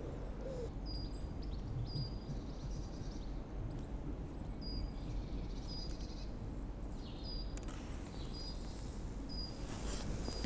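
Steady low outdoor background rumble, with a small bird repeating a short, high chirp about once a second.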